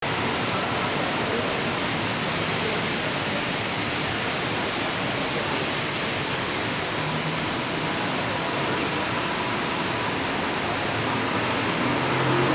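Heavy rain pouring down onto a street, a steady, even hiss of downpour. A vehicle's low engine hum comes in at the very end.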